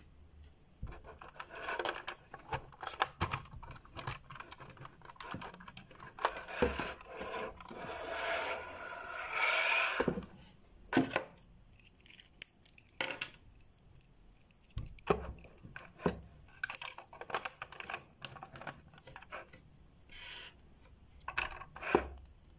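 Plastic toy parts of a Playmobil helicopter and its figures being handled: scattered clicks and taps as pieces are fitted and moved. A longer stretch of scraping and rustling comes about six to ten seconds in.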